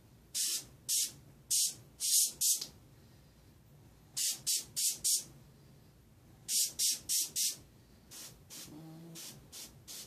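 Airbrush spraying paint through a circle stencil in short bursts of hiss, each about a quarter second. The bursts come in runs of four or five with pauses between, as the stencil's holes are dabbed into bubble-like spots. The last few bursts are fainter.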